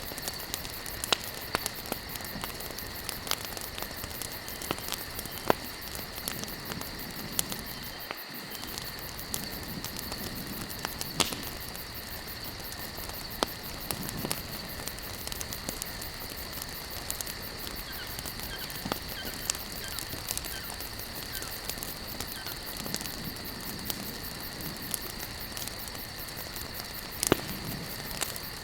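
Campfire of burning wood logs crackling: sharp pops come at irregular intervals over a steady hiss, with the loudest pop near the end.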